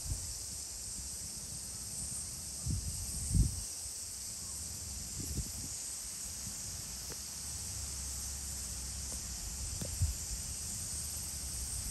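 Steady high-pitched hiss of insects, with a few short low thumps about three, five and ten seconds in.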